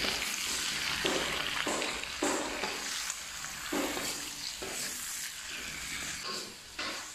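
Sliced papaya sizzling in pork fat in an iron wok while a wooden spatula stir-fries it, scraping and tossing with a stroke every half second or so. The sizzling grows quieter near the end.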